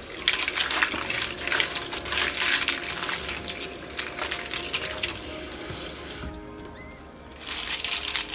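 Water running from a tap and splashing into a sink. It stops about six seconds in and starts again about a second later, with soft background music underneath.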